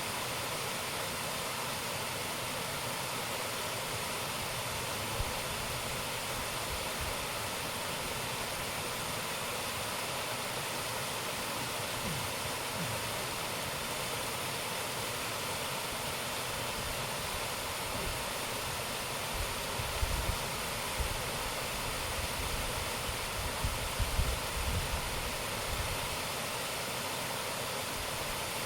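Waterfall water falling and rushing in a steady, even roar of noise. In the later part, irregular low rumbling bumps come through under it.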